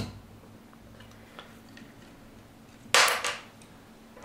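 Metal clicks and clatter as a valve spring compressor is released and lifted off a valve spring on a tractor cylinder head. There is a sharp click at the start and a few faint ticks, then a brief metallic clatter about three seconds in.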